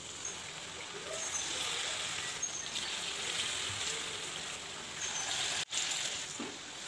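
Batter-coated sughiyan balls deep-frying in hot oil, the oil sizzling steadily with small crackles, briefly cutting out about five and a half seconds in.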